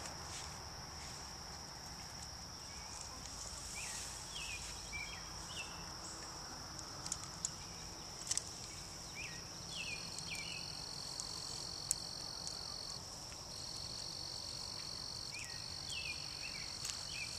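Insects trilling in a steady high drone. A second, slightly lower trill joins about ten seconds in and stops and restarts several times. Short chirps and a few faint clicks are scattered through.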